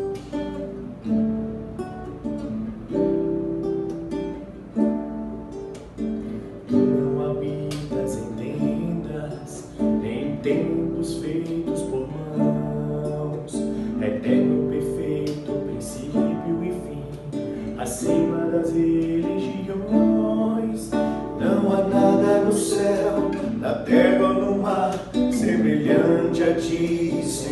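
Music: acoustic guitar strumming chords in the instrumental opening of a worship song.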